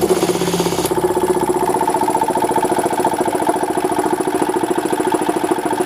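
Oilless piston pump of an air compressor running, belt-driven by an old electric motor, with a fast, even pulsing over a steady hum. It is pumping up the tank, with the pressure rising only slowly toward its 150 psi cut-off.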